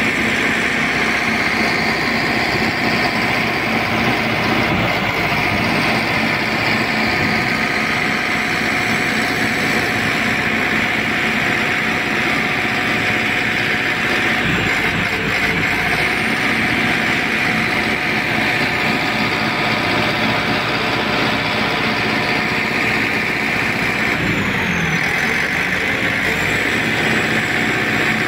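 Caterpillar motor grader's diesel engine running steadily under load as the machine grades, with a dense, constant mechanical noise throughout.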